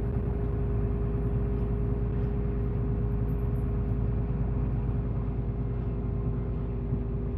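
Mitsubishi Fuso Aero Star (QKG-MP38FK) city bus running, heard from inside the cabin: its six-cylinder diesel and drivetrain give a steady low rumble with a constant mid-pitched whine.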